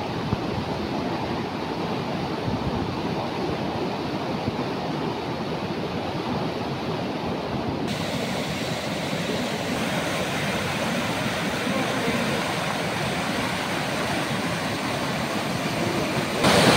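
Fast-flowing floodwater from a swollen river rushing past, a steady roar of water. About eight seconds in it turns brighter and hissier.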